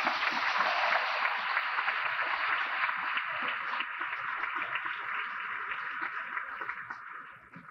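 Audience applauding, a dense patter of many hands clapping that dies away near the end. The sound is thin and narrow, as heard through a worn VHS tape recording.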